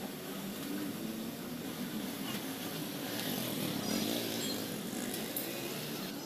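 Steady background noise of a roadside workshop, with a vehicle engine running and faint voices.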